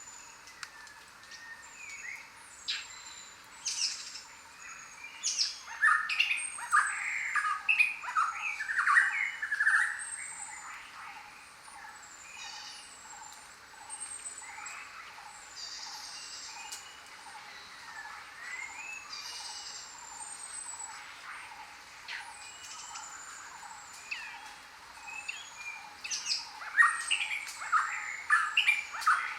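A chorus of jungle birds calling and chirping: short, high falling whistles repeat over and over above busier bursts of chirps. The chirping swells about a fifth of the way in and again near the end.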